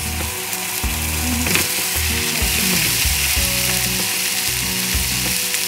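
Sirloin steaks sizzling steadily in an oiled ridged griddle pan on high heat. A second steak is laid into the hot pan partway through, with a brief surge of sizzle about a second and a half in.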